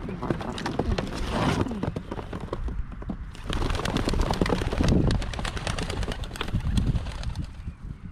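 Young racing pigeons released from a basket, wings clapping and flapping in a dense rush of beats as they take off together.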